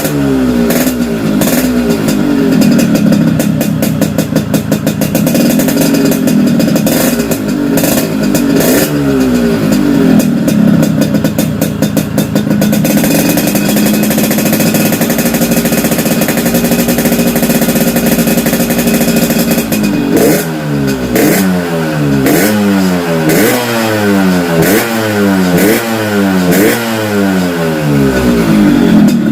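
Yamaha RX-King two-stroke single revved hard through a gutted ('bobok') exhaust, its pitch rising and falling in quick throttle blips with sharp crackles. It holds a steadier note for several seconds midway, then is blipped again and again near the end. The exhaust has been hollowed out for a crisp, snarling 'garing ngorok' note.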